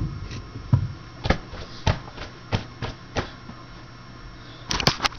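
Burst, frozen aluminium Coca-Cola can being handled: a sharp knock at the start, then light knocks and clicks about every half second, and a quick cluster of clicks near the end.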